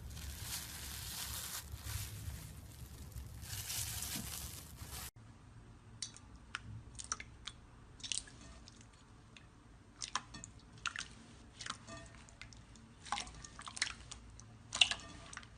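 Slime being worked by hand: a soft, even squishing for the first five seconds, then, after a cut, a scattered run of small sharp pops and crackles.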